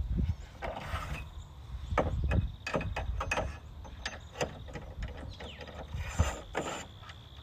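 Irregular metallic clicks, knocks and rattles from the hinged rear arm and support leg of a Track Tvan camper trailer, as their pins and fittings are released by hand for stowing; a few clicks ring briefly.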